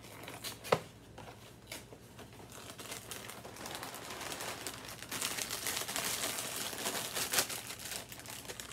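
A cardboard cereal box being opened, with one sharp click under a second in, then its plastic inner bag crinkling as it is pulled up and worked open, louder over the second half.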